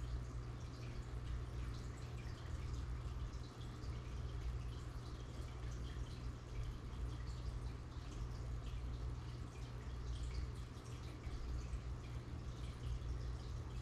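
Aquarium filter running: water trickling and bubbles popping at the surface in many small ticks, over a steady low hum.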